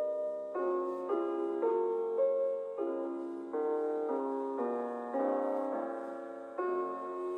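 Solo piano music: gentle chords and melody notes struck roughly every half second to second, each note sounding on and slowly fading.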